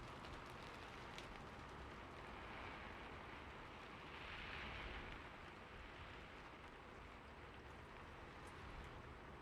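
Faint steady rain falling, with a few separate drops ticking and a brief swell of heavier rain about four seconds in.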